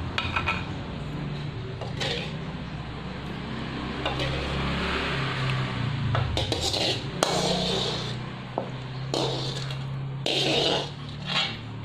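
Kitchen utensils clinking and scraping against pots and dishes in several short knocks, over a low steady hum.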